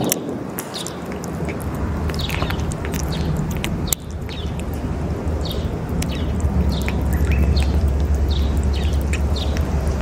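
A cat chewing and licking wet food from a metal bowl close to the microphone, with repeated short clicks and smacks. Small birds chirp steadily in the background, and wind rumbles on the microphone, stronger in the second half.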